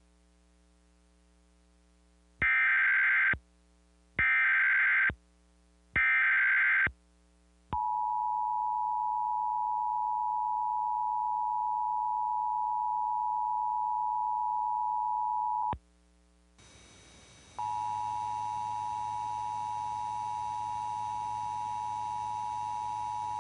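Emergency Alert System broadcast: three short SAME header data bursts, each under a second and about two seconds apart, then the two-tone EAS attention signal held steady for about eight seconds. After a brief silence a hiss and a low hum come in, and the attention tone starts again and keeps going.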